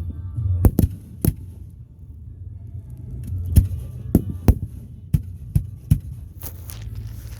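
Fireworks going off in a string of sharp bangs at uneven intervals, over a steady low rumble.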